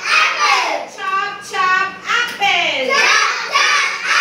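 Children singing in high voices, in repeated phrases that fall in pitch.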